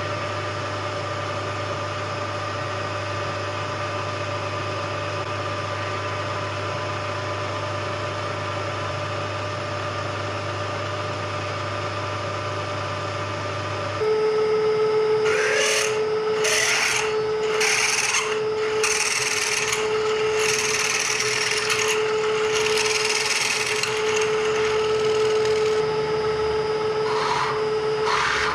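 Vertical milling machine running with a steady hum. About halfway in, its spindle runs with a steady whine while a drill bit is fed into the aluminium block of a BMW M54 engine, drilling out a stripped head-stud hole, with uneven spurts of cutting and rasping as the quill is fed in.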